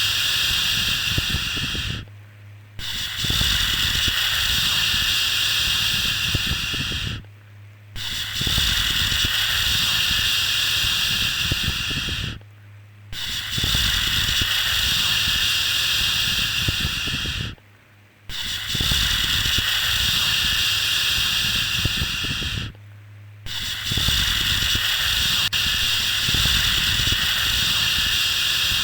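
Long drawn-out 'shhh' shushing sound for soothing a baby, each shush lasting about four and a half seconds with a brief pause between, repeated six times in an even rhythm.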